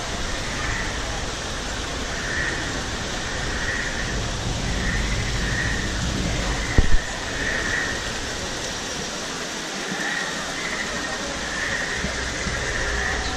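Outdoor theme-park ambience: a steady rushing wash with crowd murmur, over which a high chirping call repeats roughly once a second. A short double knock sounds about halfway through.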